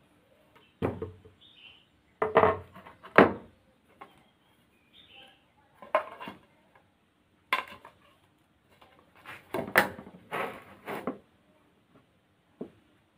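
Thin wooden boards knocked together and set down on a wooden board on a tabletop: a series of sharp, irregular wooden knocks and clatters.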